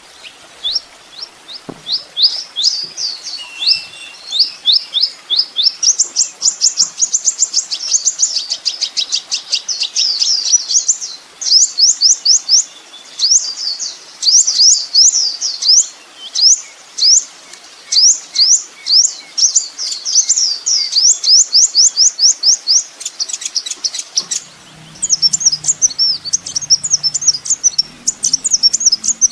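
Kolibri ninja sunbird song: fast runs of high, sweeping chirps and trills in quick bursts with short pauses. About 24 seconds in, the phrasing changes to a busier twittering over a faint low hum.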